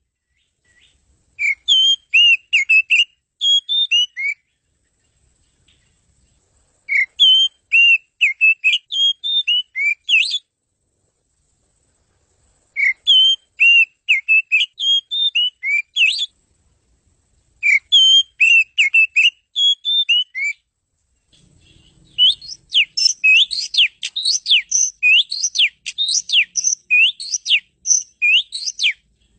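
Oriental magpie-robin singing a varied song: four whistled phrases of about three seconds each, with short pauses between them. About two-thirds of the way through it breaks into a continuous run of rapid notes that rise and fall.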